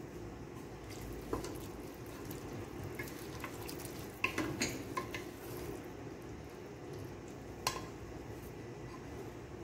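Wooden spoon stirring cooked chickpeas in a metal pot, with a few sharp knocks of the spoon against the pot: one early, a quick cluster around the middle, and one more later.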